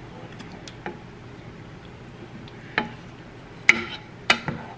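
Wooden spatula stirring a chicken stew simmering in a skillet, over a soft steady bubbling. The spatula knocks against the pan a few times, loudest twice near the end.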